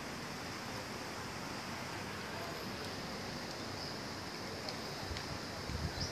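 Steady outdoor background hiss with a faint high-pitched steady tone over it, and a few soft low bumps near the end from the phone being handled.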